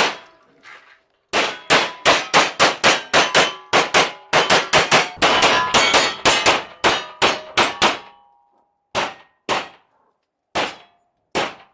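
Rapid metallic clangs with a short ring after each, like steel targets being hit in a fast string of pistol fire: about twenty strikes over some seven seconds, then four spaced single strikes near the end.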